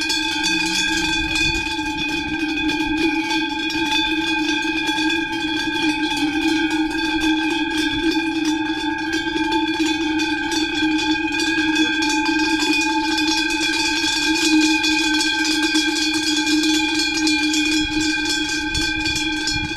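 Cowbells clanking and ringing continuously, a loud, dense metallic clatter over steady bell tones.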